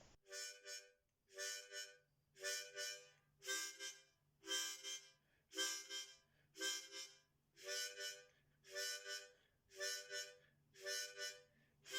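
Background music: short reedy chords repeating in a steady rhythm, about one a second.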